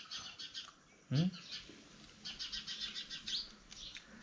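Small birds chirping in quick repeated series. About a second in, a short low voice-like sound with a falling pitch cuts in and is the loudest moment.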